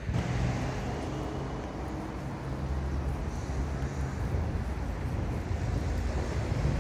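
Steady road-vehicle noise with a low engine hum that holds for the first four seconds or so, then fades, over wind on the microphone.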